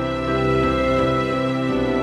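Background music: held, pitched notes that change every half second or so.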